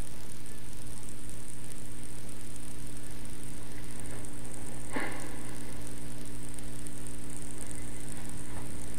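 Steady electrical hum and hiss of the recording with a faint high whine, and no music. One short sound comes about five seconds in.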